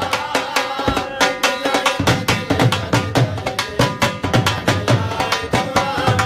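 Dhol, a double-headed barrel drum, played fast with sticks: a dense, driving run of rapid high strokes over repeated deep bass beats.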